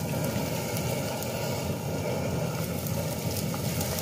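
Portable gas camping stove burning steadily under a pan, with chopped chili peppers, scallion, ginger and garlic sizzling in oil.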